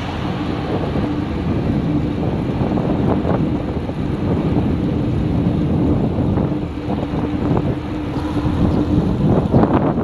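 Strong, steady wind rumble on the microphone of a camera on a bicycle riding at speed, with road and traffic noise underneath.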